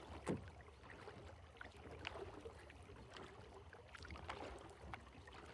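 Faint water sounds: gentle lapping with a few small splashes scattered through.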